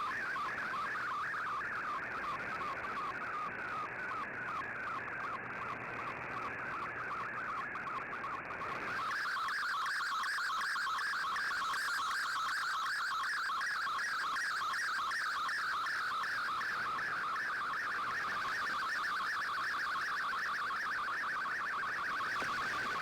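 Shortwave radio receiving a digital-mode data transmission: a continuous, rapidly warbling band of tones over static. About nine seconds in, the static underneath drops away and the tones come through cleaner and slightly louder.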